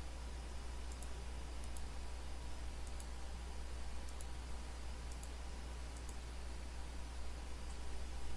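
Computer mouse button clicking now and then, about once a second, over a steady low electrical hum and faint microphone hiss.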